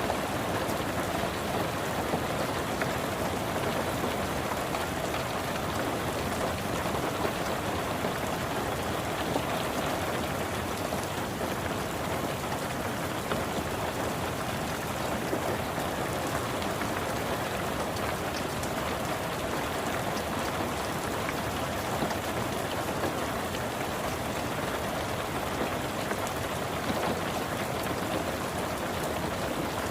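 Steady rain falling on a car, heard from inside: a constant hiss of rain with many small drop ticks on the roof and glass.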